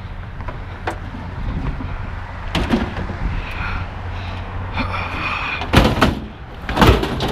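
Clunks and knocks of heavy equipment being handled and loaded into a truck over a steady low hum, with two loud bangs near the end.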